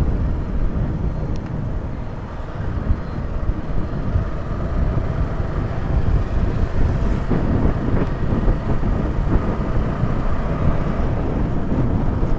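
Motorcycle on the move, its engine and the rushing air making a steady low rumble on the rider's microphone.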